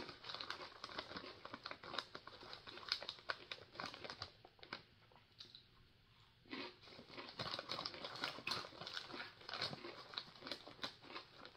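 Plastic snack bag of arare rice crackers crinkling as a hand rummages in it for crackers, with a brief lull about halfway through.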